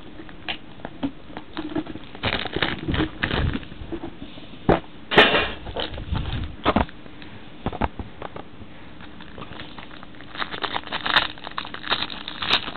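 Hands opening a trading-card box: scattered clicks and knocks of a metal tin and a card case being handled. Near the end a plastic wrapper crinkles as it is torn open.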